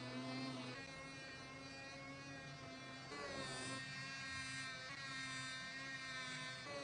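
A small electric motor running with a steady whine, its note shifting and getting louder about three seconds in.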